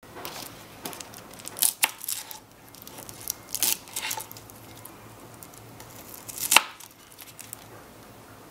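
Miniature knife clicking and scraping against a small wooden cutting board as small cloves are trimmed and their dry papery skins peeled off. The clicks come irregularly, the sharpest about two-thirds of the way in, and the sound thins out near the end.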